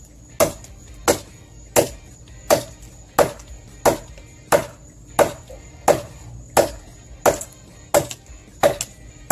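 Small Husqvarna hatchet chopping into a fallen tree branch: about thirteen sharp blows of steel into wood in a steady rhythm, a little under one and a half a second.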